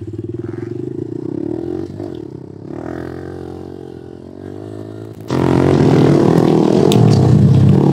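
Honda CRF pit bike engines, small four-stroke singles, running as the bikes ride off, with the pitch rising and falling under throttle. Just past five seconds in the engine sound turns suddenly much louder and fuller, with scattered clicks and crackles on top.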